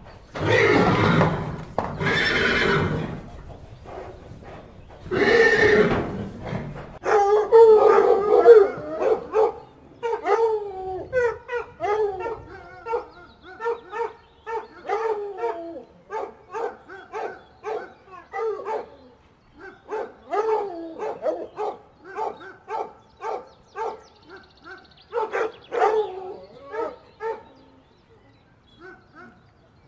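A horse neighing, with loud noisy blasts in the first few seconds, then a long run of short, quick calls that bend up and down in pitch.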